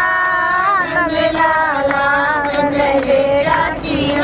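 A woman singing a song, holding long notes that waver and bend in pitch.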